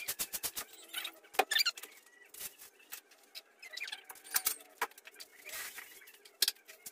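Cats giving short, high, squeaky mews amid scattered clicks and rustles, as they crowd around a food bowl.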